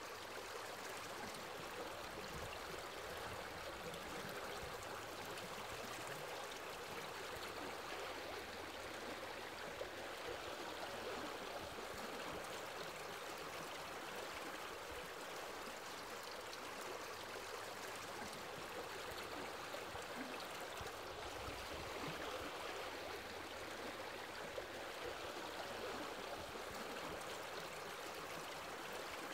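Running stream water: a steady, even rush with no breaks.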